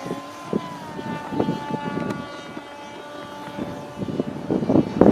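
Motor and propeller of a radio-controlled Cessna 170 model plane in flight, a steady pitched whine with many overtones that drops in pitch about a second in. Gusting wind buffets the microphone and grows loud near the end.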